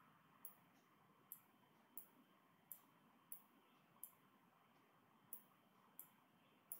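Faint computer mouse clicks: about nine single sharp clicks, spaced irregularly roughly half a second to a second apart, over near silence.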